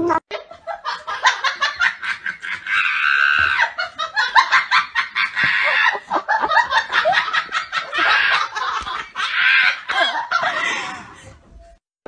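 A person laughing hard, a long run of quick ha-ha sounds that fades out near the end.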